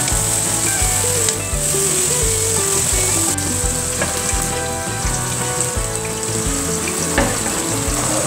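Minced meat sizzling steadily as it fries in a nonstick pan, stirred with a wooden spoon, with background music over it.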